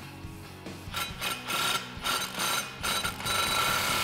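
Milwaukee M18 Fuel cordless impact wrench hammering the 15 mm bolt of an exhaust tip clamp tight. It goes in several short runs starting about a second in, with the longest and loudest run near the end.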